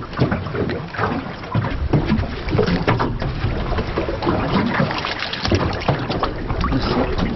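Wind buffeting the microphone and small waves slapping and splashing against the hull of an anchored aluminium boat, with scattered knocks and clatters.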